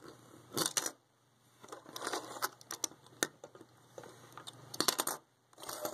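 Plastic LEGO and Bionicle parts being handled close to the microphone: scattered sharp clicks and short rustles as pieces knock and rub together.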